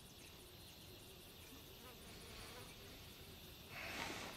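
Faint buzzing of insects in the background, with a short hiss near the end.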